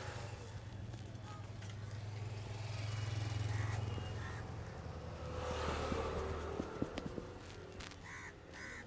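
A motor vehicle passing by: a low engine drone swells, drops in pitch and fades. Near the end come a few sharp clicks.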